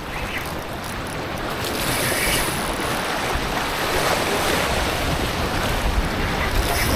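Wind buffeting the microphone, with a constant rushing wash of waves behind it; the rumble swells a little about two seconds in.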